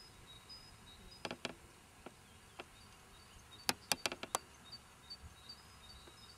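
Sharp clicks of unknown source: two about a second in, then a quick run of five, louder, near the four-second mark. Faint high-pitched chirping runs in the background throughout.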